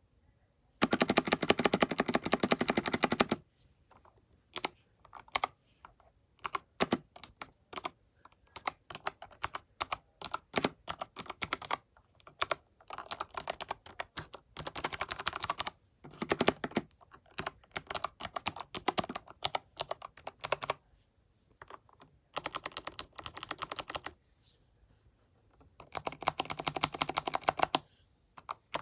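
Typing on an Epomaker EP84 mechanical keyboard with Kailh Box Jade clicky switches: sharp, crisp clicks. Runs of very rapid clicking alternate with slower, uneven typing and short pauses.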